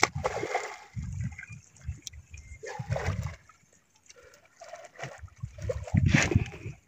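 Water splashing and sloshing in irregular bursts, the loudest about six seconds in.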